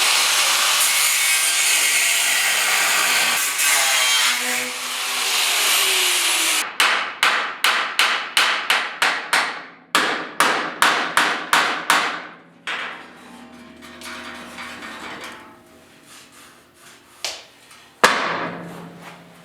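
Power tool cutting through a welded sheet-metal seam on the Bronco body, a loud, steady rasping for the first six seconds or so. It is followed by a run of short, repeated strokes, about two or three a second, then quieter scattered scraping near the end.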